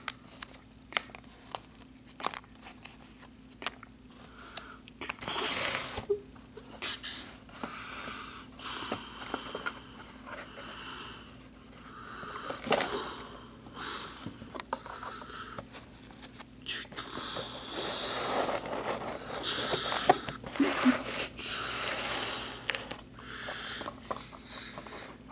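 Cardboard packaging being handled: scattered clicks and taps, then rustling and scraping swishes on and off, loudest near the middle and toward the end.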